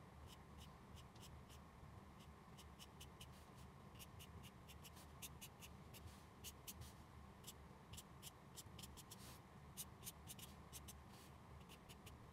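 Black felt-tip marker scratching on paper in many quick, short hatching strokes, faint and irregular, a little busier from about a third of the way in, over a faint steady low hum.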